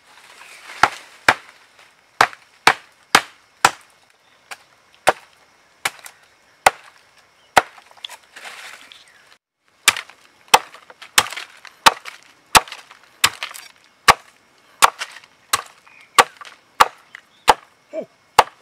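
Wood being chopped: a long run of sharp, evenly paced strikes, one every half-second or so, with a short break about halfway through before the chopping resumes.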